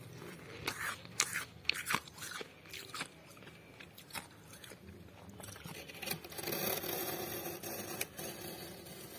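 Soft, dry freezer frost crunching and scraping. A quick run of sharp crisp crunches comes in the first few seconds, and a longer rasping scrape comes about six to eight seconds in.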